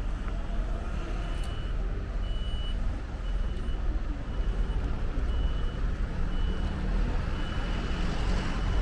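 An electronic warning beeper sounding one high tone about once a second, starting about a second in, over a low rumble of street traffic.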